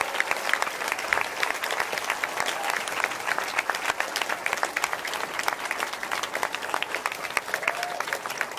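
Concert audience applauding, a dense steady clatter of many hands clapping.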